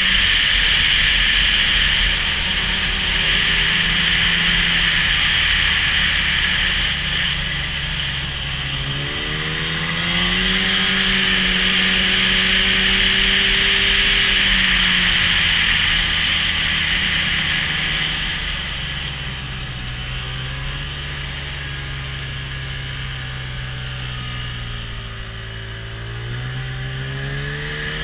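Snowmobile engine running under the rider, its pitch rising about nine seconds in, holding, falling back past the middle and climbing again near the end, over a steady hiss.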